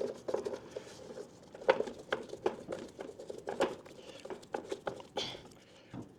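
Irregular light clicks and taps of hand-fitting the air cleaner cover and wing nut back onto the Kohler Command 25 engine, with a brief rustle about five seconds in.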